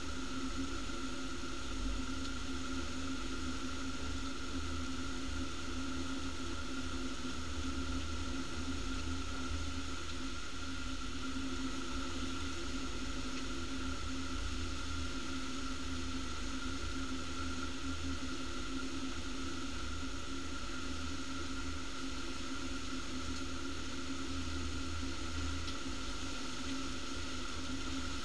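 Heavy rainstorm: a steady hiss of downpour with a low, fluctuating rumble of wind on the microphone.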